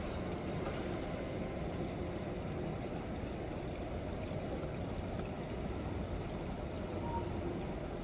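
Steady low rumble of a Mack front-loader garbage truck's diesel engine running, with no marked changes.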